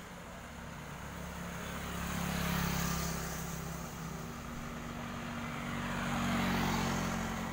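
Yamaha RX-King two-stroke motorcycle with a hollowed-out (bobokan) exhaust riding past on the road, its engine sound swelling about two and a half seconds in and again near the end.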